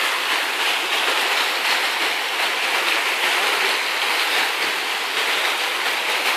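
Steady rush of spraying and running water from pool fountains and water slides, an even hiss with no change in level.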